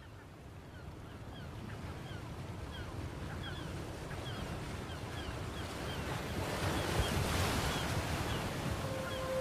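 Wind and surf-like noise fading in and swelling, with birds chirping over it again and again. Near the end a steady held musical tone begins.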